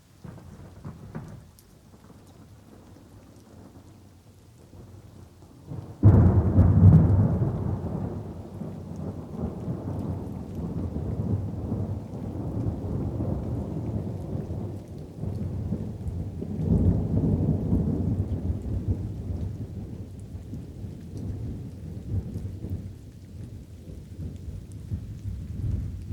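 Light rain with thunder. About six seconds in a sudden loud thunderclap breaks out and rumbles on, swelling again about halfway through and slowly dying away.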